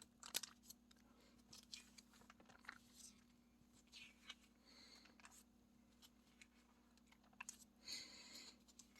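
Near silence: faint room tone with a low steady hum and a few soft clicks and rustles scattered through it.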